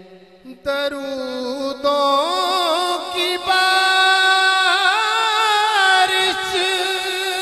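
A man singing a naat, an Urdu devotional poem, in long held notes with a wavering pitch, over a steady sustained drone. The voice comes in about a second in, after a short pause.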